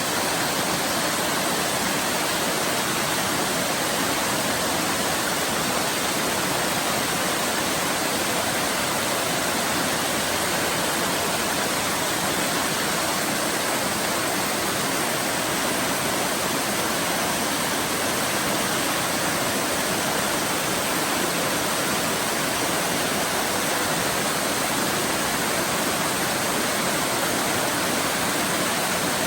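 Waterfall rushing steadily, an even, unbroken roar of falling water with no change.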